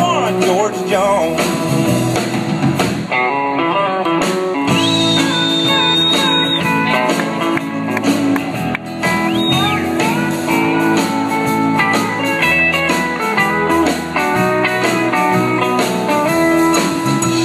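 Live country band playing an instrumental close to a song: drums, acoustic guitar and pedal steel guitar, with high sliding lead notes about five seconds in and again near ten seconds.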